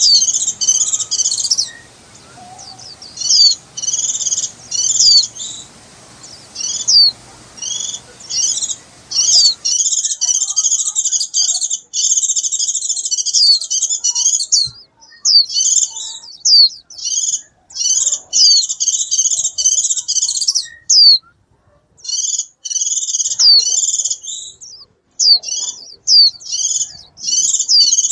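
White-eyes chirping and twittering in quick, high, bright phrases repeated with short pauses: contact calls to the flock.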